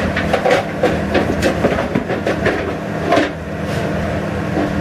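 Pans and crockery knocking and clattering as they are handled at a kitchen sink, over a steady mechanical hum.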